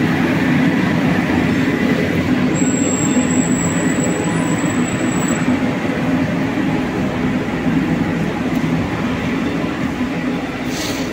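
Steady, loud street noise on a busy pedestrian street: a dense rumble with no single clear source.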